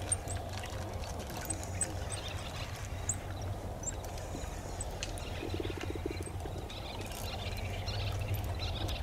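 Riverbank ambience: a steady low rumble with scattered short, high bird chirps, and a brief rapid rattling trill a little past halfway.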